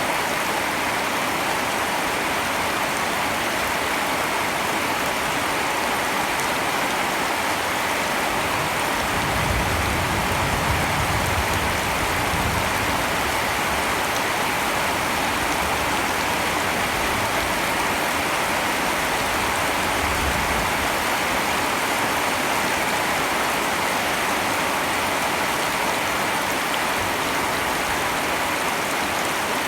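Steady rain falling, an even hiss without pause, with a low rumble coming in briefly about nine to thirteen seconds in.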